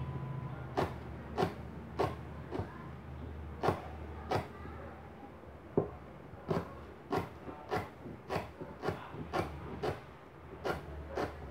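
Knife chopping lemongrass finely on a plastic cutting board: a run of sharp knocks, about one to two a second, somewhat irregular.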